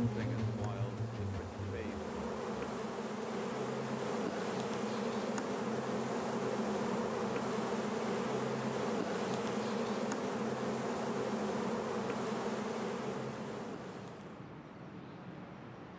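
Honeybees buzzing in numbers: a steady droning hum. Near the end it drops quieter and duller.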